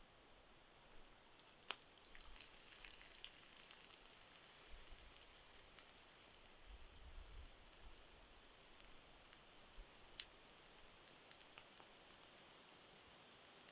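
Food sizzling faintly in a frying pan over campfire embers, louder for a couple of seconds near the start. A few sharp clicks and crackles, the loudest about ten seconds in.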